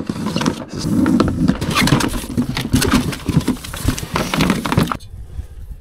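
Cardboard box of Cat6 network cable being handled and opened, with the coiled cable pulled and shifted inside. It makes a dense run of rustling, scraping and knocks that stops about five seconds in.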